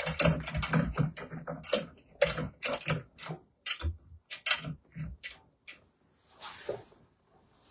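Parts of a light-up pole-and-bar assembly being handled and pushed together: a quick, irregular run of clicks and knocks for about five seconds, then a soft rustle near the end.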